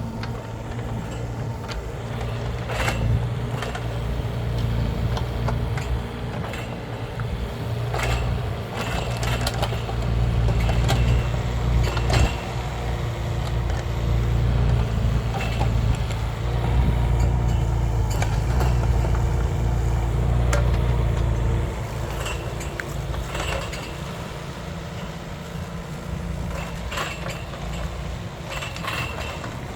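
Mini excavator engine running, with scattered clanks and knocks of metal on top. Its drone drops lower and quieter about two-thirds of the way through.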